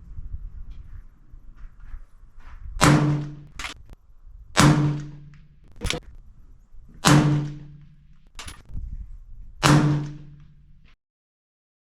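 Four suppressed shots from a 6.5 Creedmoor SIG Cross bolt-action rifle fitted with a Tatanka .375-calibre silencer, about two to two and a half seconds apart, each followed by a short low ring. A fainter sharp click comes about a second after each of the first three shots.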